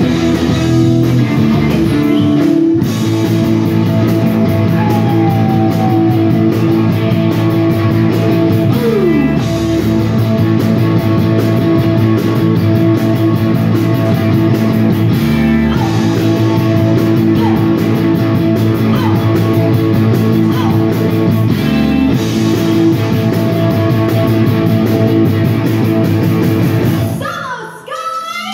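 Live rock band playing loud: a woman singing into a microphone over electric guitar and drums. The music drops out briefly near the end before coming back in.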